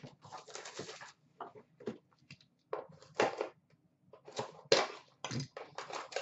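Trading-card packaging being handled: short, irregular rustling and crinkling bursts, the loudest about five seconds in.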